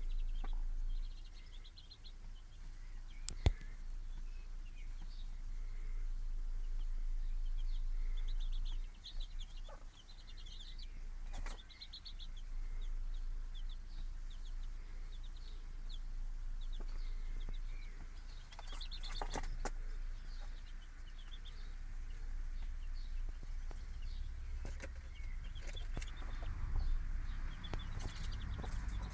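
Young chicks peeping in quick, high, repeated trills, with a brooding hen clucking. A few sharp clicks stand out.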